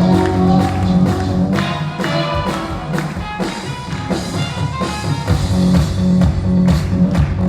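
Recorded dance music with a steady beat played over the hall's sound system, its bass dropping out for a few seconds in the middle and returning near the end.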